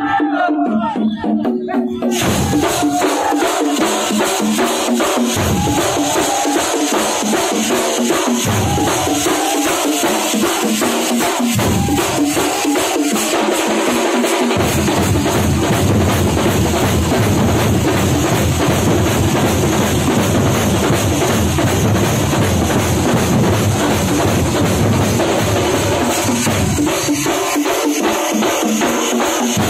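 Thampola percussion ensemble playing loud, fast drumming, with a steady high metallic shimmer above the dense stick strokes. The deep drum strokes come in short bursts during the first half and then run without a break from about halfway through.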